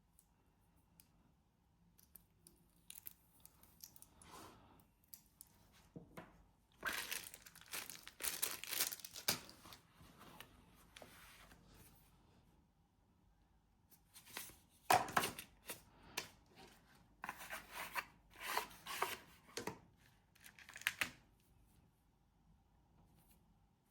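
Close-up handling noise: irregular bursts of crinkling and rustling. A first cluster comes about seven seconds in, and a longer run from about fifteen seconds, with quiet stretches between.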